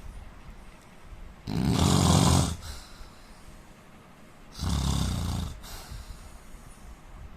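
A man snoring: two loud rattling snores about three seconds apart, each lasting about a second, with quiet breathing between them.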